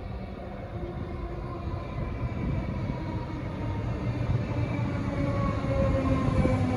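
Metro Alstom Comeng electric train approaching, a low rumble that grows steadily louder, with faint whining tones from the train that shift in pitch.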